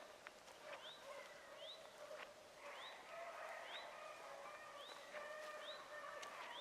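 A pack of rabbit hounds baying in the distance while running a rabbit's track. Long held bays overlap, with a short rising cry repeating about once a second.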